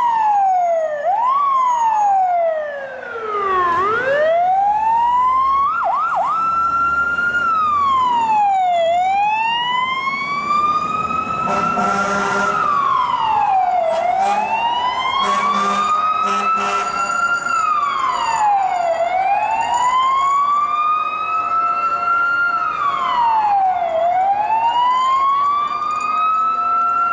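NYC fire truck siren wailing: a slow rise and fall in pitch, repeating about every five seconds, after a few quicker sweeps at the start. A lower steady tone and a burst of noise join under it in the middle.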